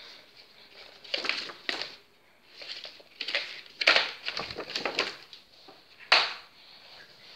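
Paper model hubcaps being handled and turned over, giving bursts of stiff paper rustling and scraping, with one sharper, louder burst about six seconds in.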